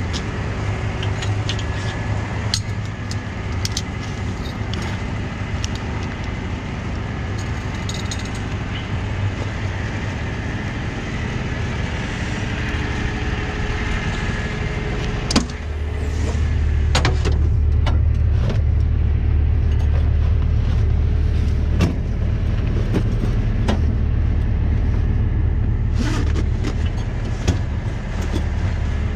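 Tow truck engine running steadily, with scattered metal clinks and rattles of chains being handled. About halfway through the engine sound steps up and stays louder.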